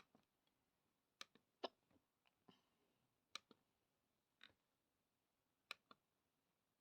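Near silence broken by about a dozen faint, sharp clicks at irregular intervals.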